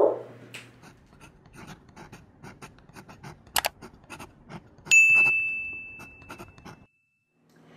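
Pen-scratching sound effect of a signature being written stroke by stroke. A single sharp click comes about three and a half seconds in, and a notification-bell ding about five seconds in rings and fades over about two seconds.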